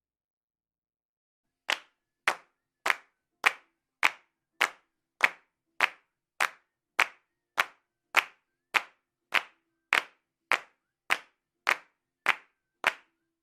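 Hand claps at a slow, steady beat, a little under two claps a second, starting after a couple of seconds of silence.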